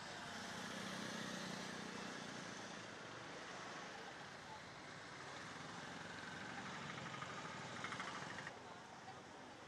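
Road traffic: vehicles running and passing, a steady noisy hum, with a brief buzzing rattle near the end before the sound drops off abruptly.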